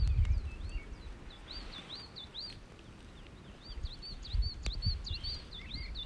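A small songbird singing: phrases of short, arching high chirps, about four a second, with brief pauses between phrases. A low rumble sits under it at the start and again about four and a half seconds in.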